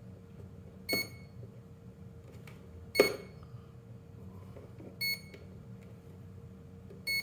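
Electronic speed controller (ESC) giving short high beeps about every two seconds, with a sharp click about three seconds in and a faint steady hum beneath. The owner believes this beeping ESC is defective.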